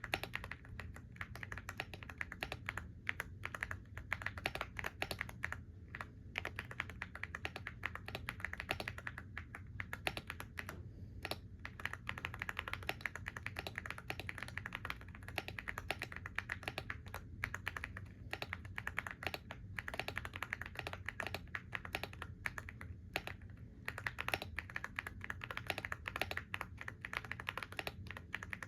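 Continuous typing on a computer keyboard: a fast, uneven stream of key clicks with brief pauses now and then.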